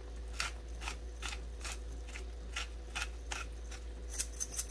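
A hand-twisted pepper grinder cracking black peppercorns, with a short rasping click about twice a second that quickens into a flurry of clicks near the end.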